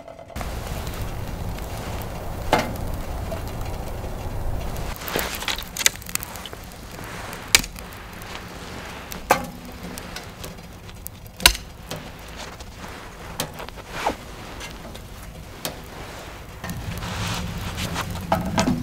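Wood fire crackling in a small stainless-steel camp wood stove: irregular sharp pops over a steady low rumble.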